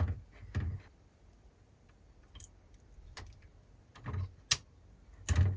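Sparse small clicks and taps of fingers handling the circuit boards, plastic connectors and wires inside an opened spot welder, with a sharper click about four and a half seconds in and a heavier knock just after.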